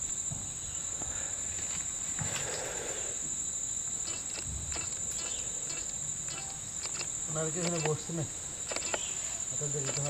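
Steady high-pitched drone of insects, with a few faint clicks and rustles.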